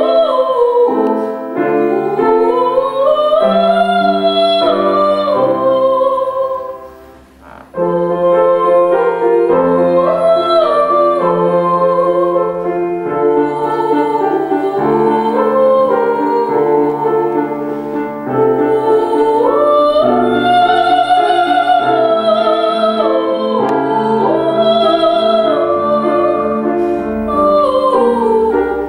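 Woman singing a classical piece in a trained, operatic voice with vibrato, accompanied by piano. Both stop briefly about seven seconds in, then the song resumes.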